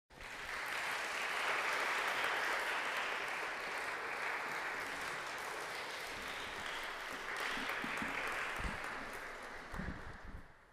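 Audience applauding, the clapping dying away near the end, with a few low thumps as it fades.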